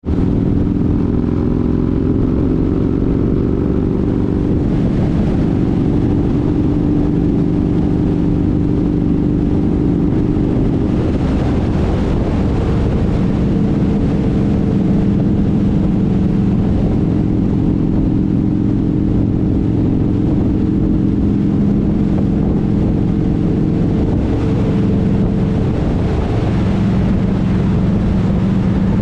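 Motorcycle engine running steadily at highway speed under loud wind rush; its pitch pattern changes about eleven seconds in. A tractor-trailer passes alongside near the end, adding road noise.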